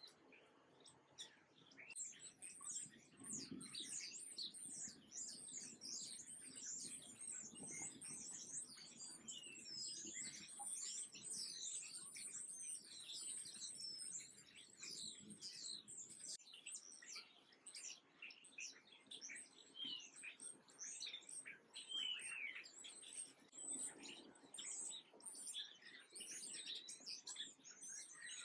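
A flock of small songbirds chirping busily: many short, high chirps overlapping one another, starting about two seconds in.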